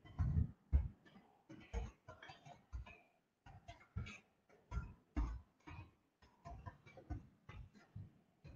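Faint, irregular clicks and a few soft low thumps, several scattered a second, with no speech.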